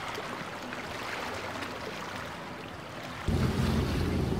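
Waves and rushing water with wind, then about three seconds in a sudden, louder low rumble of boat engines with wind buffeting the microphone.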